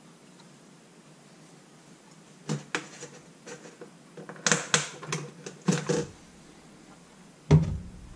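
Hard plastic clicks and knocks as a solar garden lamp's panel and housing are handled, then one heavier thump as the lamp is set down in a stainless steel sink.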